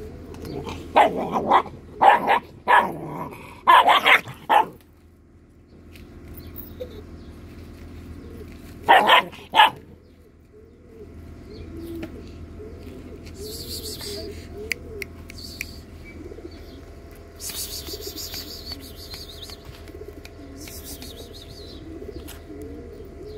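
A young black-and-tan dog barking in short loud bursts: a run of barks in the first five seconds and two more about nine seconds in. Faint bird chirping in the quieter second half.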